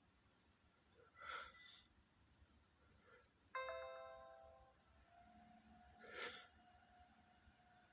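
Near silence with two faint breathy sounds and, about three and a half seconds in, a short chime-like ringing tone that fades away within a second.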